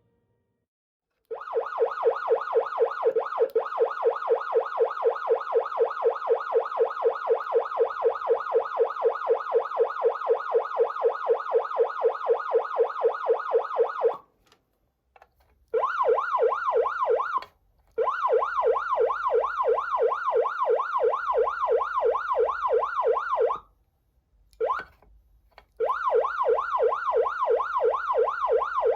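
Patlite vehicle siren amplifier sounding a fast yelp tone, the pitch sweeping up and down about three times a second. It starts about a second in and cuts off and restarts several times.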